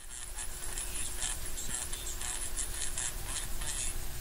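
1959 GE P805A transistor radio powered up after a coupling capacitor was replaced, giving hiss and irregular crackling static with a faint steady tone under it and no station coming through: the set is still not working right.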